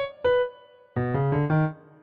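Background music played on a piano-like keyboard: a note right at the start, then a quick run of notes about a second in that dies away.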